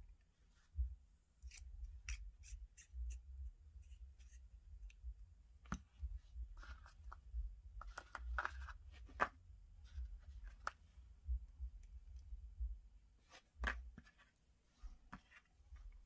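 Small metal clicks, taps and light scrapes of hands handling the steel parts of a disassembled out-the-front automatic knife, with a few sharper clicks, the loudest near the end.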